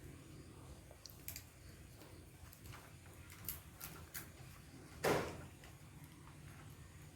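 A few light clicks, then one louder knock about five seconds in.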